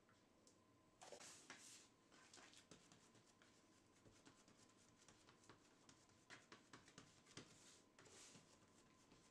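Near silence with faint rubbing and light knocks of hands handling bread dough in a metal loaf pan, pressing the dough down into the tin.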